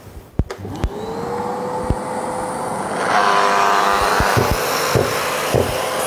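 Hilti DGH 130 concrete grinder's electric motor starting and spinning up to a steady whine, with a few knocks. About three seconds in, its diamond cup wheel meets the concrete wall and the sound turns louder and rougher: dry grinding with no vacuum dust extraction attached.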